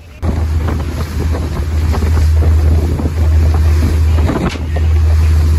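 Patrol boat's engine running hard at speed, a steady low drone, with wind buffeting the microphone and water rushing past the hull. It cuts in abruptly just after the start.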